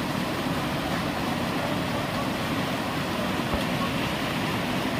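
Fast-flowing river water rushing in a steady, even noise.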